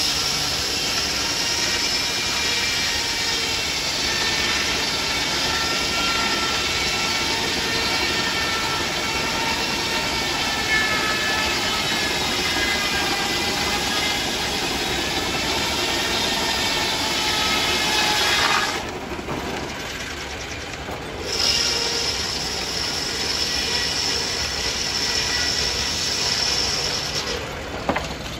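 Belt-driven sawmill circular saw blade cutting through a log, a steady high whine over a ringing tone that wavers in pitch. About two-thirds of the way through the sound drops back, then the blade's high whine returns until shortly before the end.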